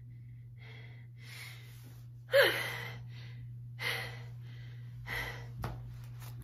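A woman breathing hard in a series of short breaths and gasps. The loudest, about two seconds in, is a voiced gasp that falls in pitch. A steady low hum runs underneath.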